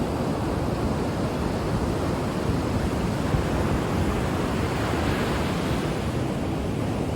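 Ocean waves washing on the shore, a steady rushing noise with little rise and fall, and some wind on the microphone.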